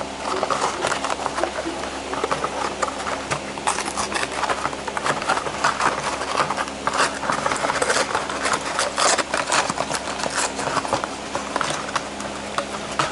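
Close-up crinkling and crackling of a Matchbox toy car's blister pack being torn open by hand: cardboard backing ripping and the clear plastic blister crackling in quick, irregular bursts.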